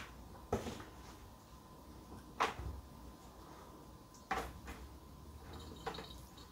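Four light knocks, spaced a second or two apart, as fresh pasta sheets are laid into a metal baking tin and hands bump against it.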